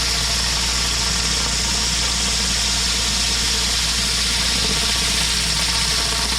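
Pressure washer's engine running steadily, with the steady hiss of the high-pressure water spray blasting concrete.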